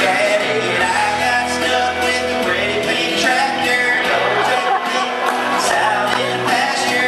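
A man singing live into a microphone while strumming an electric guitar.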